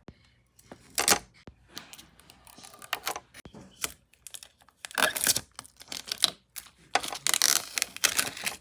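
Motherboard box and packaging being handled and opened: a run of clicks, scrapes and rustles, loudest about a second in, around five seconds and near the end.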